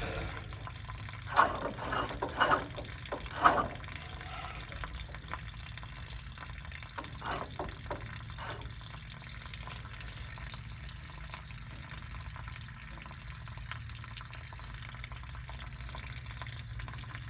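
Steady running water, with a few short knocks about one to four seconds in and again around seven to eight seconds.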